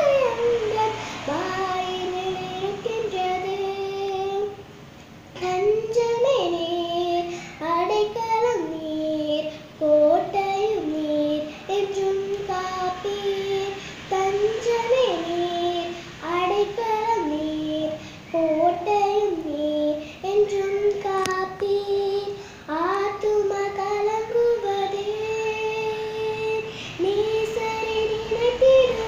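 A young girl singing a Tamil Christian song solo and unaccompanied, a single melody line broken by short pauses for breath.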